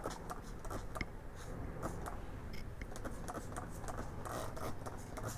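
A Colin trigger spray bottle filled with soapy water, pumped again and again: a quick, irregular run of short sharp squirts.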